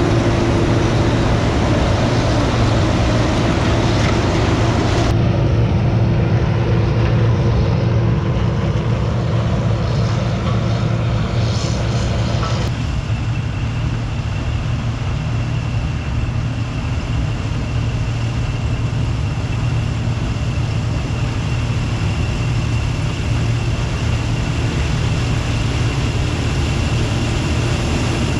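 Gleaner combine running steadily while harvesting field corn, a loud low engine drone with machine noise over it. The sound shifts abruptly about five and again about thirteen seconds in.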